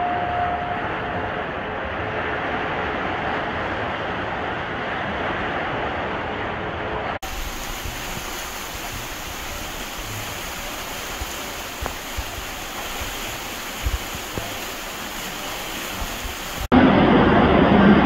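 Rushing water running down the concrete channel of an Intamin river rapids ride, a steady rush. It turns to a thinner, quieter hiss about seven seconds in and comes back much louder near the end.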